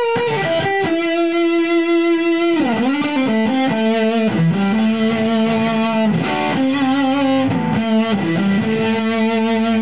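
Electric guitar through a Danelectro Cool Cat Fuzz pedal with the fuzz at maximum and no boost, playing single-note lines. The notes are long and sustained, with several bends.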